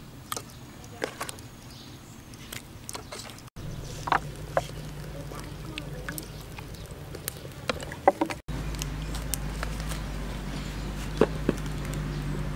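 Hands mixing seasoned raw meat in a metal pot: scattered light clicks and wet knocks, with a low steady hum underneath in the later part.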